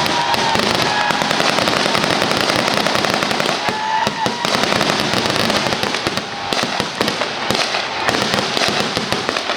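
Dense, unbroken crackling and popping of pyrotechnics standing in for the anti-aircraft barrage in an air-raid reenactment.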